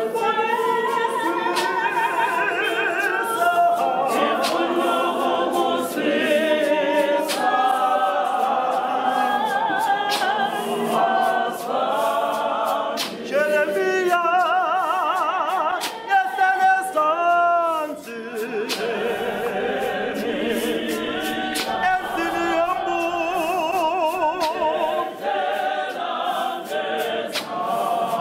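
A mixed congregation of men's and women's voices singing a hymn a cappella. Around the middle, one voice with a strong wavering vibrato stands out above the rest. Scattered sharp knocks sound through the singing.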